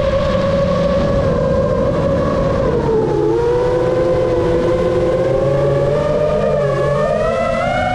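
Brushless motors and propellers of an iFlight Chimera7 Pro 6S 7-inch FPV quadcopter whining in flight. The pitch dips about three seconds in and rises again near the end as the throttle changes, with a rushing noise underneath.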